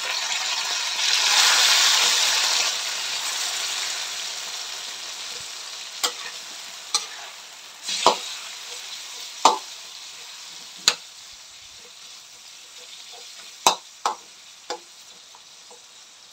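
Pork belly sizzling as it is stir-fried in a metal wok. The sizzle is loud at first and dies down steadily. A metal spatula knocks and scrapes against the wok several times in the second half.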